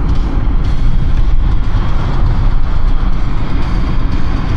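Steady road noise of a car driving at speed, heard from inside the cabin, with a deep low rumble.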